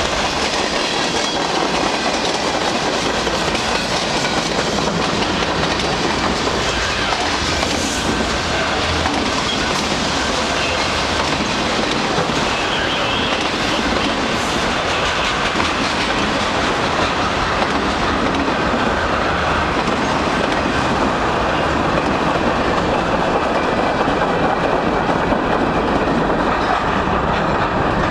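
Freight cars of a long mixed freight train rolling past, a steady, loud noise of wheels on rails that grows a little louder near the end.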